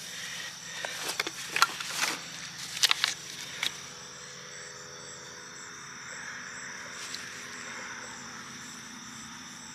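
Several sharp clicks and knocks over the first few seconds, then a steady outdoor chorus of insects, with high, even chirring over fainter low tones.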